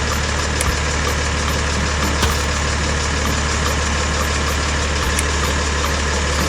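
Small motor of a DIY miniature tractor running steadily: a continuous, even hum.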